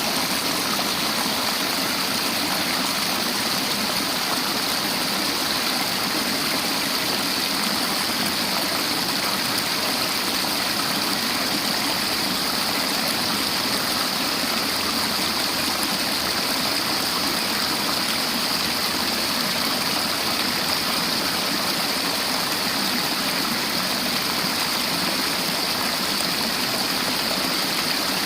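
River water flowing and rushing steadily over rocks.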